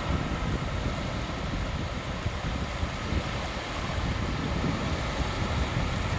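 Sea waves washing onto a beach in a steady surf, with wind buffeting the microphone as a low rumble.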